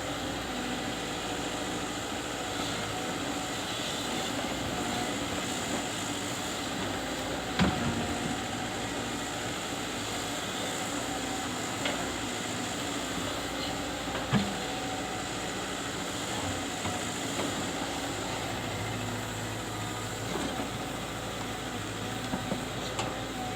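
Caterpillar 313D2 GC excavator running steadily, with a sharp knock about a third of the way in and another a little past halfway.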